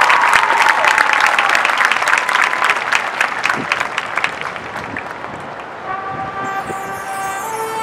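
Crowd applauding and cheering in the stands, dying down over about five seconds. About six seconds in, a held chord of band horns starts and changes pitch once near the end.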